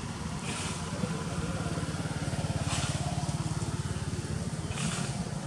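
A small engine running steadily with a low, fast pulse. A short hiss sounds three times, about two seconds apart.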